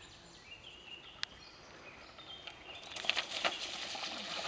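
Birds chirping faintly, then from about three seconds in a mountain bike's tyres splashing through a shallow stony stream, getting louder as the bike comes closer.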